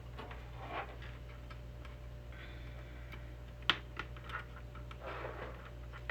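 Small clicks and brief rustles of hands handling small parts and tools during electronics work, with one sharp click about three and a half seconds in, over a steady low hum.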